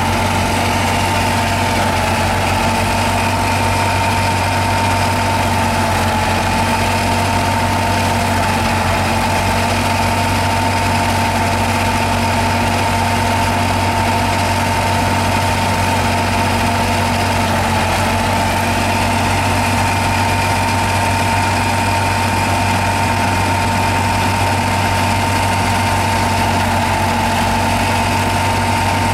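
Belle City threshing machine running steadily as wheat bundles are fed into it: a constant mechanical drone with a steady high whine.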